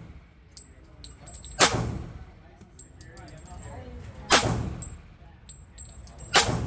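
Three single shots from a Glock 23 .40 S&W pistol, about two to two and a half seconds apart, with small metallic clinks of ejected brass between them.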